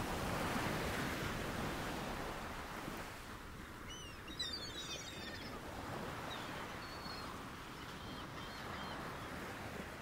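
Ocean waves washing in a soft, swelling rush, with a few faint high chirps about four to five seconds in.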